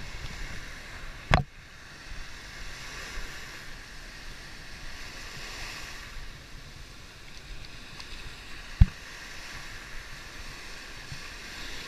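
Small waves breaking and washing up on a sandy beach, a steady hiss of surf. Two sharp clicks cut through it, one about a second in and a louder one later.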